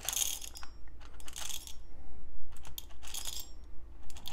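Whole coffee beans rattling into a small metal dosing cup as an 18 g espresso dose is weighed out. The beans go in three short pours, about a second and a half apart.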